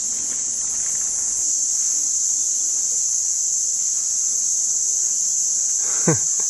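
Rainforest insects droning, one steady high-pitched buzz that never lets up. A short downward-gliding sound comes in near the end.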